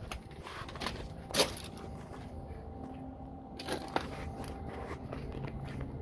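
A few sharp knocks and crunches over a steady low mechanical hum. The loudest knock comes about a second and a half in, and another just before four seconds.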